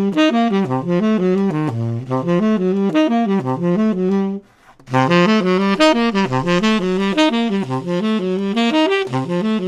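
Unaccompanied tenor saxophone playing fast jazz lines built on triad pairs, in two quick running phrases with a short breath about four and a half seconds in.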